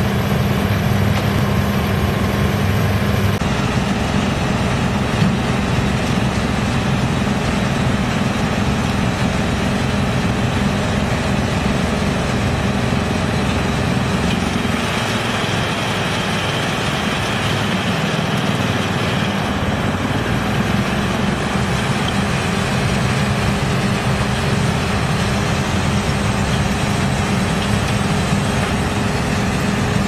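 YGX2113 drum wood chipper running, a loud steady hum under dense, rough machine noise. The sound changes a little about halfway through.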